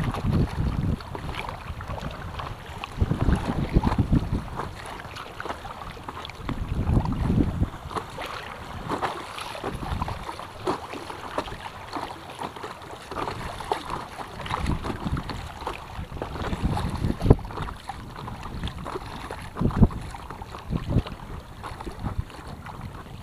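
Choppy river water slapping and splashing against an inflatable stand-up paddleboard and its paddle as it is paddled along. Gusts of wind buffet the microphone with low rumbles every few seconds.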